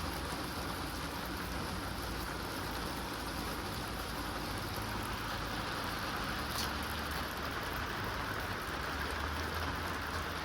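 Steady rushing noise of rain, even throughout, with a low hum beneath it.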